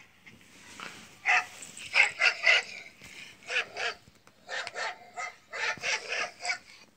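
Dog barking in quick runs of short barks, played through a tablet's small speaker.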